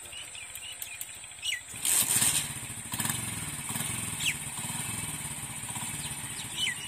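A Honda CD 70 motorcycle's small single-cylinder four-stroke engine starting: it catches about two seconds in with a brief loud burst, then runs steadily. Birds chirp now and then.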